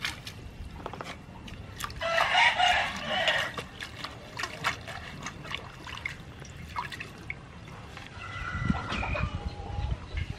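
A rooster crows about two seconds in, and a chicken calls again near the end. Through it comes water splashing and dripping as leafy greens are swished and squeezed by hand in a steel bowl.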